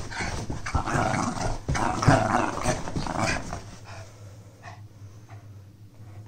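Dog growling while tugging on a plastic toy, loudest for the first three seconds or so, then quieter.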